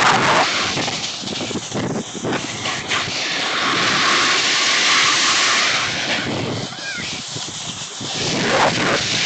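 Snowboard sliding and scraping over firm, tracked snow, with wind buffeting the microphone at riding speed. The hiss swells for a few seconds in the middle and eases again near the end.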